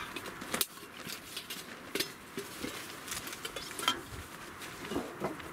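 Snow Peak titanium camping pot and lid clinking as they are handled and stowed in a bag, with a few sharp metal clicks.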